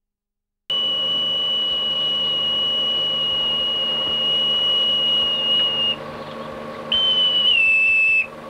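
Boatswain's call (bosun's pipe) being piped: one long, steady, high note held for about five seconds, then after a short break a second note that drops in pitch partway and cuts off.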